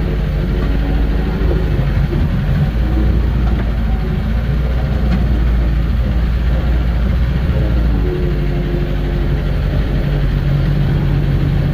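Engine of a small work machine running steadily, its note shifting for a few seconds in the middle before settling back.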